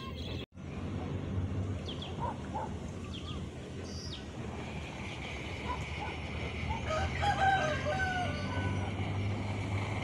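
A rooster crows once, about seven seconds in, over a steady low wind rumble on the microphone, with a few short bird chirps earlier.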